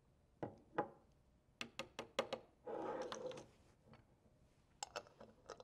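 Light clicks and taps of plastic measuring spoons and a glass oil jar being handled and set down on a countertop: a quick run of clicks about two seconds in, a brief scraping rustle just after, and a couple more taps near the end.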